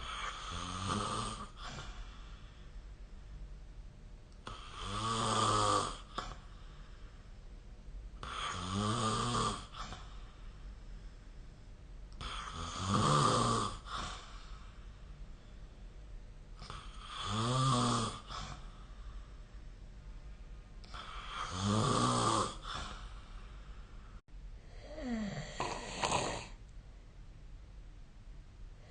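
A person snoring in a steady rhythm: seven snores about four seconds apart, each lasting a second or so, with quiet breathing between them.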